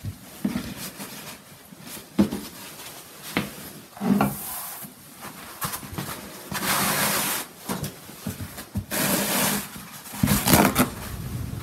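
Paper towel rustling and being rubbed and patted on a sink counter, blotting wet mason bee cocoons dry, in several short bursts with a few light knocks. A low steady noise comes in near the end.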